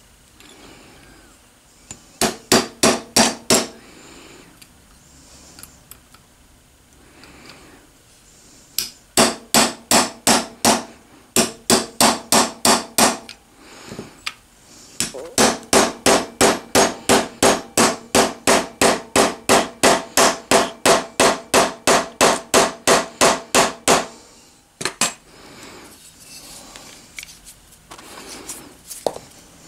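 Small wood-handled hammer tapping a pin into the aluminium body of a manual knurling tool during final assembly. Quick, light, even strikes, about three or four a second, come in three runs, the longest nearly nine seconds.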